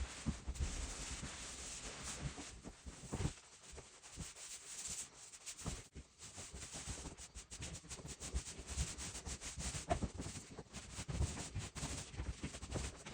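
Irregular rubbing and scuffing on a wooden floor as stain is worked into the boards, with scattered small knocks.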